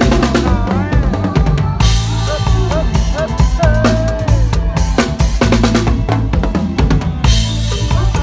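Live band music in lam phloen style: a driving drum-kit beat with heavy bass drum and snare, over bass and a gliding melodic line.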